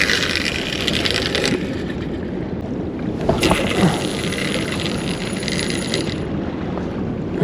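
Strong wind rumbling steadily on the microphone, with two stretches of brighter hiss: one for about the first second and a half, another from about three and a half to six seconds in.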